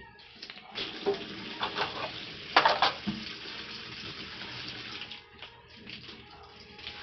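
Kitchen faucet running into a stainless-steel sink while dishes are rinsed under it, with a short, louder splash and clatter about two and a half seconds in. The running water quietens after about five seconds, leaving scattered light clinks.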